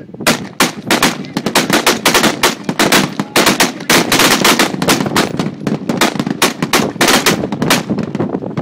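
Gunfire from many weapons firing at once along a range's firing line: a dense, irregular volley of sharp, overlapping shots, several a second, starting abruptly.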